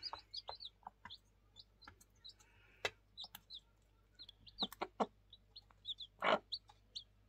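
Newly hatched chicks peeping: many short, high, hooked chirps one after another. Mixed in are sharp pecking taps at the feed dish and a few short, louder clucks from the mother hen, the loudest about six seconds in.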